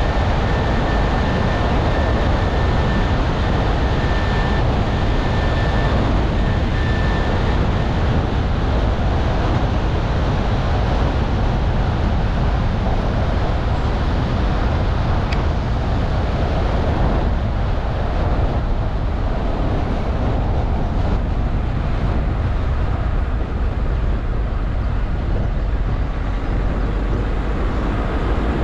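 Car driving along a road: steady tyre and road noise with a low rumble. A faint high whine sits on top for the first several seconds.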